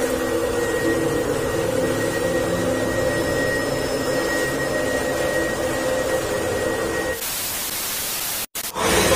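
A steady hum made of several held low tones with a thin high whine above it, giving way about seven seconds in to a hiss of static that cuts out for an instant shortly before the end.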